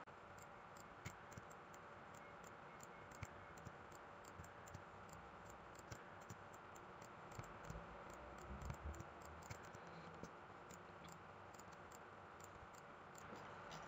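Faint computer mouse clicks, scattered and irregular, over near-silent room tone.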